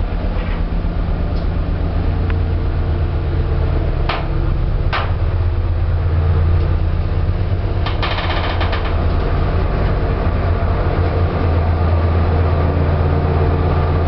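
TechWind passenger lift on a car ferry travelling down between decks: a steady low hum throughout. Two sharp clicks come about four and five seconds in, and a short burst of rapid clicking around eight seconds.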